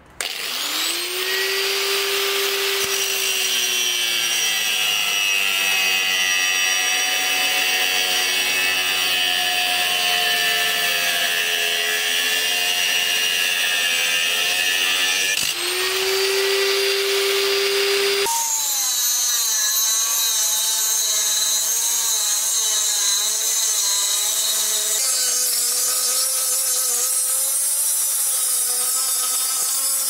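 Angle grinder with a thin cut-off disc spinning up, running steadily, then cutting through 80CrV2 high-carbon steel plate. The grinder spins up a second time about halfway through, and once the disc bites into the steel its motor note wavers under the load.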